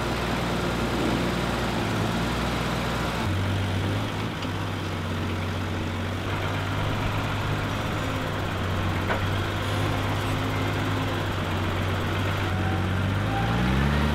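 Tractor's diesel engine running steadily under a front-loader job, then revving up with a rising pitch near the end.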